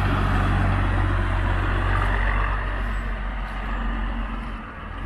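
Diesel engine of a long-hood American-style semi-tractor with twin exhaust stacks driving past and away, a steady low engine rumble that fades as it goes.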